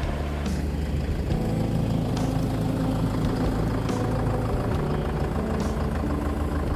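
A vehicle engine running steadily, a low hum with a few faint ticks over it.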